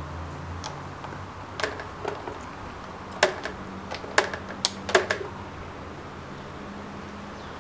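Plastic parts of a robot vacuum cleaner clicking and knocking as they are handled and fitted back together: about half a dozen sharp clicks, the loudest between about three and five seconds in, over a steady low hum.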